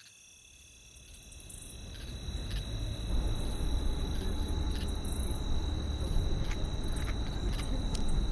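Car driving at night, heard from inside the cabin: a low engine and road rumble that rises over the first few seconds and then runs steadily, with a thin steady high-pitched tone above it.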